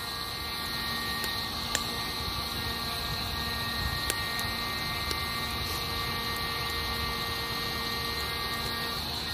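Outdoor wood fire crackling with a few sharp pops. Under it runs a steady night background: a high even hiss and a faint steady hum that fades near the end.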